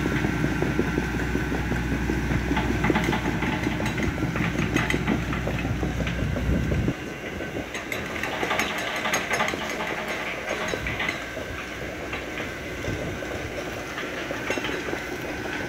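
Hitachi ZX110MF excavator's diesel engine and hydraulics running steadily under load as the bucket works in a grassy, water-filled ditch, with a clatter of sharp metallic clicks. A heavy low rumble stops abruptly about seven seconds in.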